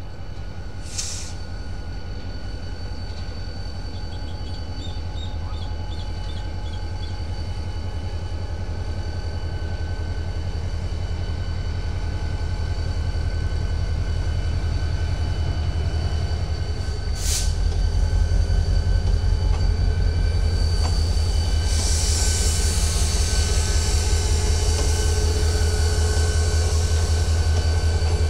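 Diesel freight locomotive in Rumo livery running under load with a low rhythmic throb, growing steadily louder as it draws close and passes below, with a thin steady high whine over it. Two short hisses come about a second in and after about seventeen seconds, and a high hiss builds near the end.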